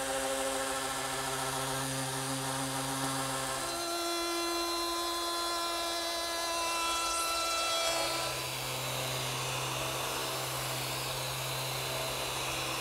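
Electric power tools shaping and smoothing a pine tabletop, one after another. An electric sander runs steadily. About four seconds in, a router takes over with a higher-pitched whine as it cuts a profile along the tabletop edge. At about eight seconds an electric sander with a dust-collection hose runs again, at the lower pitch.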